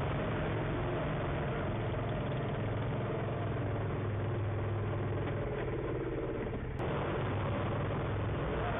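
Engines running steadily with a low hum. The sound dips slightly and changes abruptly about seven seconds in.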